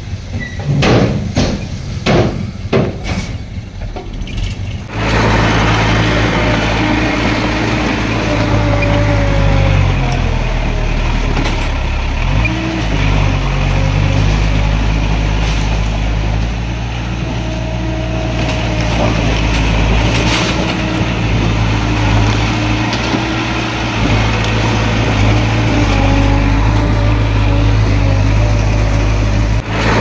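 A few seconds of knocks and clatter, then from about five seconds in a heavy construction machine's diesel engine running loudly, its pitch dipping and rising as it is worked.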